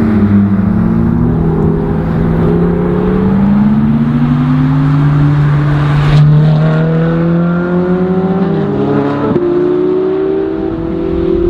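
V8 sports car engine revving and accelerating hard, its pitch climbing over several seconds, with a sudden change in pitch about nine seconds in.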